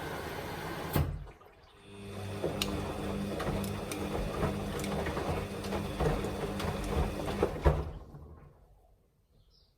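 Samsung washing machine: a steady rushing noise cuts off with a sharp click about a second in. Then the drum motor runs with a low hum and scattered clicks for about six seconds before winding down to quiet.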